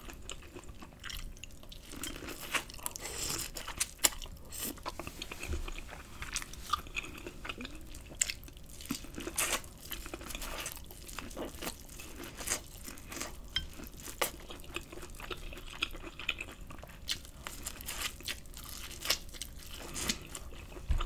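Biting and chewing corn on the cob coated in Alfredo sauce: a run of irregular, crisp crunches and chewing clicks.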